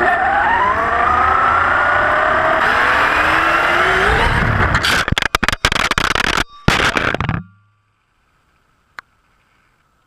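Onboard sound of an RC buggy: motor and gear whine rising and falling in pitch over rumbling tyre noise on pavement. About five seconds in the buggy crashes and tumbles, with a rapid string of knocks and scrapes. It then goes nearly silent, the buggy flipped over, with a single tick near the end.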